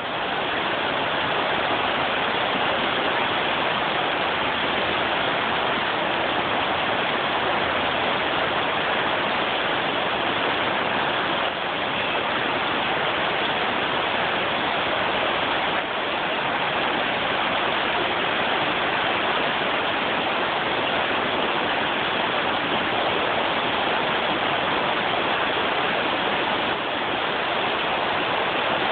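Steady rush of a shallow river flowing around rocks, an even hiss of moving water with no let-up.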